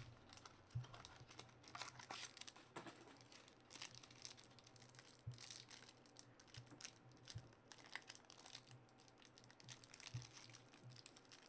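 Faint crinkling and rustling of a Panini Spectra football card pack and its cards being handled and opened, with scattered light clicks from the plastic card holders.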